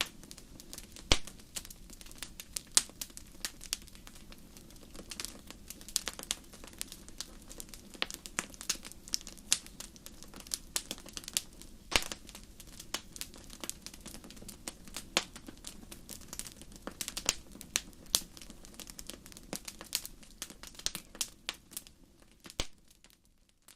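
Wood fire crackling in a fireplace: irregular sharp pops and snaps over a soft low background noise, fading out near the end.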